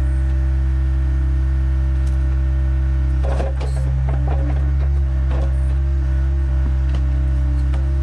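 Skid steer engine running steadily, with a string of irregular sharp clanks about three to five and a half seconds in.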